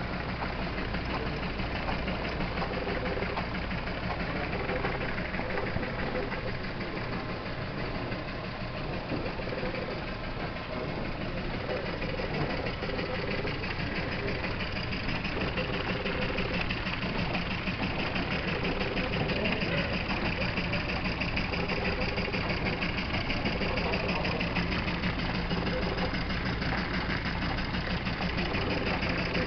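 Jensen #20 toy machine shop running: its overhead line shafts, belts and miniature machine tools make a rapid, steady clatter that grows a little louder in the second half.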